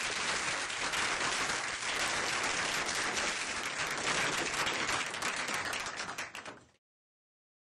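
Audience applauding, a hall full of people clapping steadily; the applause fades and then cuts off abruptly to silence about two-thirds of the way through.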